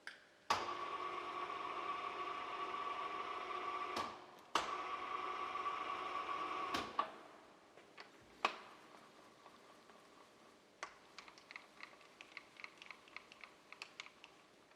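Makino KSJP-55 knee-type vertical milling machine running under power with a steady whine, in two runs of a few seconds each. Each run starts and stops with a sharp click. Near the end come a few knocks and then a quick series of light mechanical ticks, about three or four a second.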